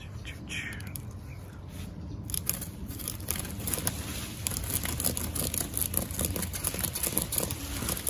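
Leaves and twigs rustling and crinkling as the chainsaw bar is brought up into a tree's leafy branches. It grows denser from about two seconds in, over a steady low rumble.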